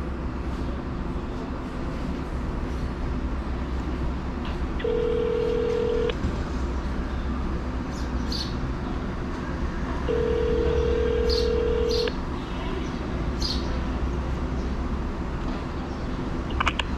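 Telephone ringback tone from a mobile phone placing a call, the sign that the other end is ringing unanswered. It sounds as two steady beeps, a shorter one about five seconds in and a two-second one about ten seconds in, over a low steady rumble.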